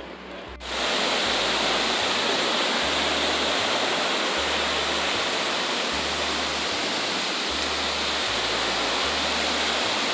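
Large waterfall's steady rush of falling water, cutting in suddenly about half a second in.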